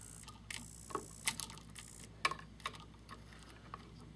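Scattered light clicks and taps of a voltage tester's metal probe tips against the screw terminals and metal strap of a wall switch, as the terminals are probed for the always-hot wire.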